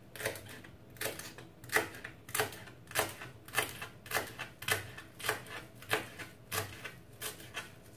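Kitchen knife chopping fresh coriander on a plastic cutting board: steady, even knocks of the blade on the board, a little under two a second.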